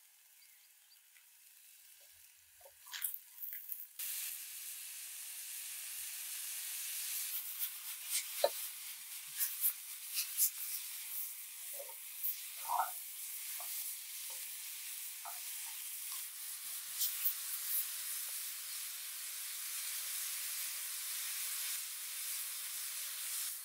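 Wild mushrooms sizzling in a frying pan over a campfire, a steady hiss that starts abruptly about four seconds in, with scattered short clicks and scrapes over it.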